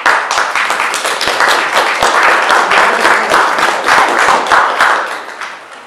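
An audience applauding, starting suddenly at full strength and dying away over the last second or so.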